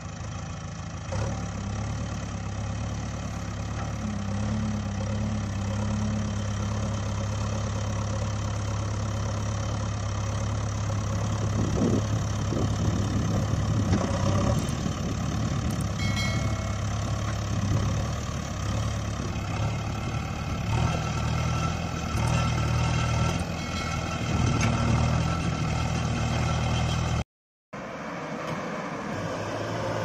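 Vehicle engine running with a steady low drone, its level swelling and dipping through the second half. The sound cuts out for a moment near the end.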